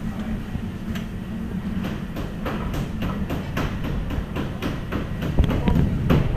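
A steady low rumble under a run of irregular sharp clicks and clinks, which become more frequent from about two seconds in.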